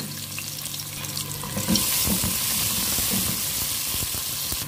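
Sliced onions and whole spices sizzling in hot oil in a steel pot; the sizzle grows louder about two seconds in.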